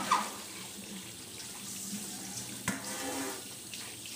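Pot of ginger and chicken-stock water simmering with chicken thighs in it, a steady bubbling wash as the chicken parboils. A sharp knock comes right at the start and another a little under three seconds in.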